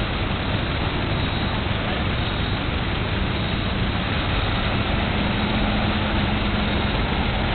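Vintage car engines running at low speed, a steady rumble with a low hum joining about five seconds in.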